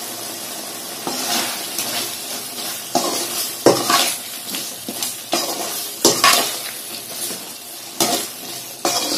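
Metal ladle stirring chicken and ground masala around a metal kadai, scraping and knocking against the pan in irregular strokes about once a second, over a steady sizzle of the curry frying.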